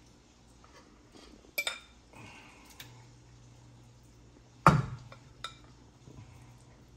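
A metal fork clinking and scraping against a glass mixing bowl while scooping batter. There are a few sharp clinks, a strong one about a second and a half in and the loudest about two-thirds of the way through.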